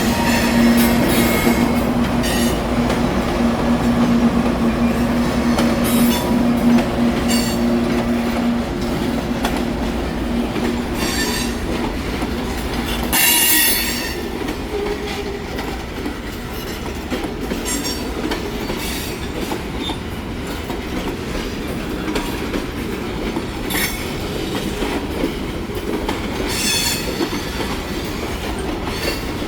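A train rolling past on the rails. The steel wheels squeal in repeated short bursts, with clicking over the rail joints. A steady low hum underneath stops about eight and a half seconds in.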